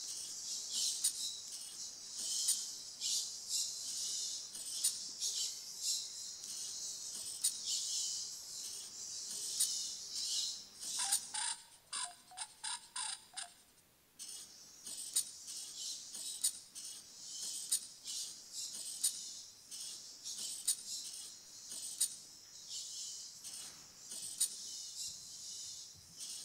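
A small robot arm drawing with a pen: the nib scratches across paper in quick repeated strokes, with small mechanical clicks from the arm between them.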